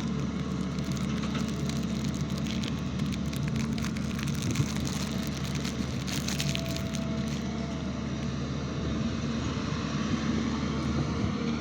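SANY excavator's diesel engine running steadily under load, with a run of rattling and crackling clatter from about two to seven seconds in.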